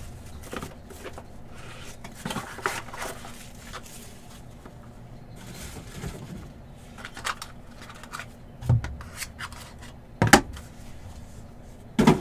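Plastic wrapping rustling as a cardboard trading-card box is unwrapped and opened, then hard plastic card cases clacking together as a stack of cased cards is handled, with three sharper knocks in the last few seconds.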